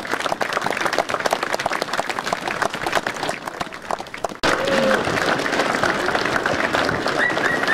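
Crowd applauding and clapping at the end of a speech. The applause drops out for an instant about four seconds in, then goes on, with a few short whistle-like calls near the end.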